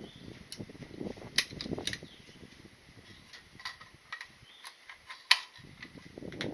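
Gunfire: several sharp gunshot cracks, the two loudest about a second and a half in and about five seconds in, with fainter shots scattered between.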